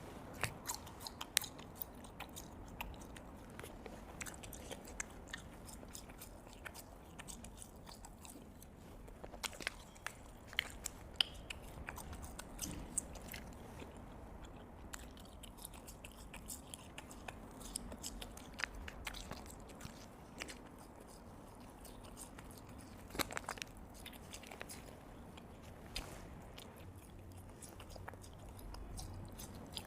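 A person biting and chewing spicy strips (latiao), with many small, irregular clicks and mouth sounds.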